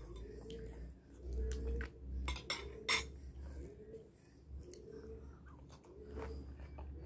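Metal spoon clinking against a ceramic bowl and plate: a few sharp clinks in the first three seconds, the loudest about three seconds in, then only fainter clicks.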